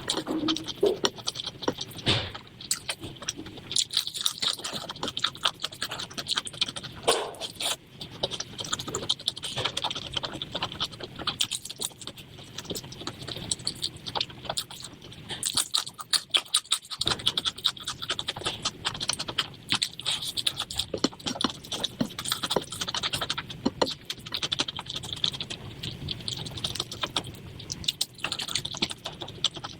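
Close-up eating sounds of chicken liver and gizzard curry with rice: a dense, continuous run of small clicks and scrapes with no let-up.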